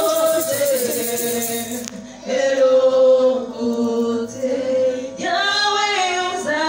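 Voices singing a worship song, with a woman singing into a microphone, in long held notes that slide from pitch to pitch. The singing breaks off briefly about two seconds in and a new phrase starts about five seconds in.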